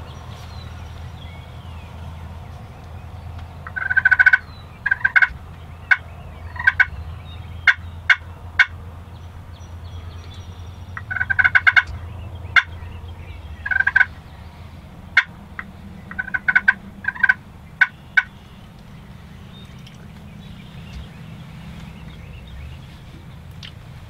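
Wild turkey gobbler gobbling, heard in two bouts of loud, rattling calls and short sharp notes, about 4 and 11 seconds in.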